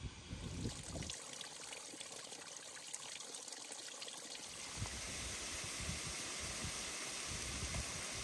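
Water trickling and splashing over rocks in a small mountain stream, a steady hiss that grows fuller about five seconds in. Wind buffets the microphone for the first second.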